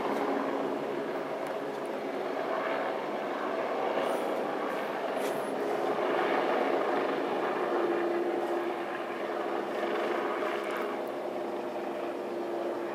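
Carabinieri helicopter in flight: a steady mix of rotor and engine noise with a few humming tones.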